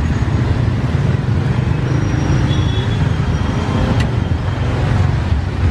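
Steady low rumble of street traffic, with a single sharp click about four seconds in.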